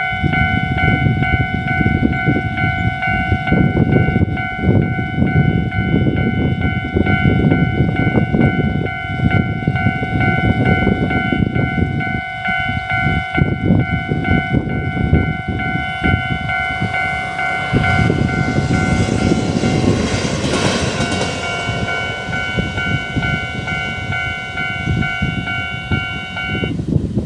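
Level-crossing warning bell ringing steadily while a TRA E200-class electric locomotive runs through alone. The locomotive's rush of wheel and rail noise swells about eighteen seconds in, peaks around twenty seconds and fades. The bell stops shortly before the end, and a low, uneven rumble runs underneath throughout.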